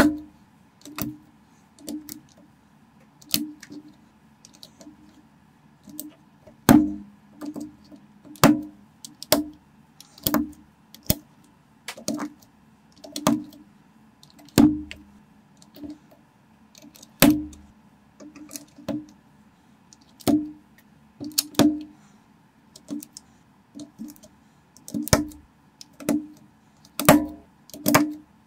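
Plastic Lego-compatible bricks being pressed together and set onto a model by hand: short sharp clicks and taps, about one a second at an uneven pace, with a few louder snaps.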